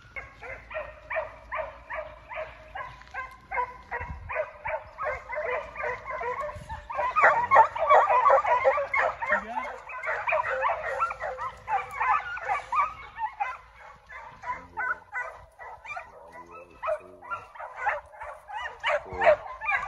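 A pack of young foxhounds giving tongue: many overlapping yelps and bawls that run on without a break and are loudest and thickest a few seconds in, the sound of hounds running a chase in a fox pen.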